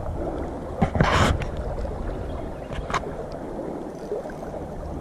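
Steady noise of moving water and wind, with a brief rushing burst about a second in and a light click near three seconds.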